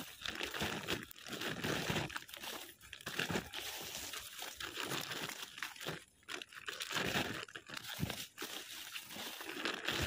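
Dry sugarcane leaves and a woven plastic sack crinkling and crunching as sugarcane tops are handled and packed into the sack. The rustling is irregular, with a couple of brief pauses.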